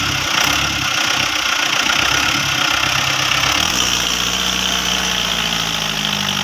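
Mahindra Arjun 555 DI tractor's diesel engine running steadily, its note changing about two-thirds of the way through.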